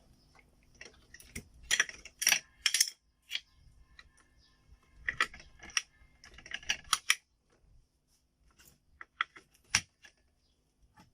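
Clusters of sharp plastic clicks and taps from computer hardware being handled on a repair bench, in three bursts with short quiet gaps between.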